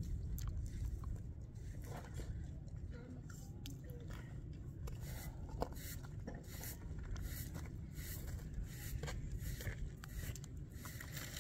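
Scattered light scrapes and crunches on dry dirt as a man works at the ground by hand, then stands and walks off, over a steady low rumble.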